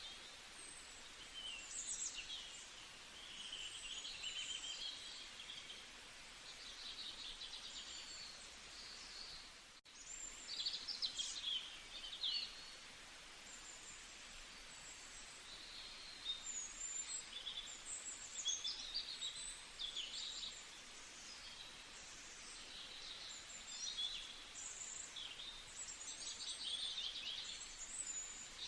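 Several songbirds chirping and singing at once: quick high trills and whistled phrases overlap over a steady background hiss. The sound drops out for an instant about ten seconds in.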